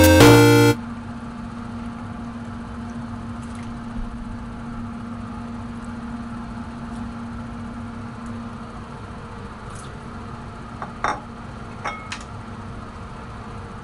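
Water boiling in a pan with black fungus blanching in it, over a steady low hum, with a few light clinks near the end. A burst of music cuts off in the first second.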